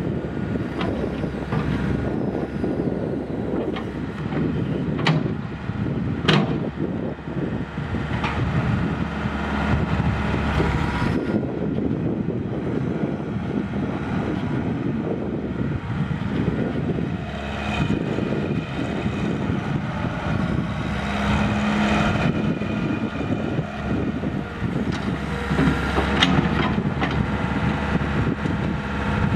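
The Isuzu four-cylinder diesel engine of a 1988 Koehring 6608 mini excavator running steadily while the hydraulics swing the machine and work the boom, with a higher whine coming and going as the hydraulics are worked. A few sharp knocks stand out, around a fifth of the way in and again near the end.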